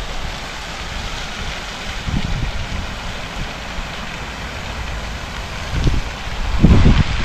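Wind buffeting an action camera's microphone in gusts over a steady hiss, the strongest gust near the end.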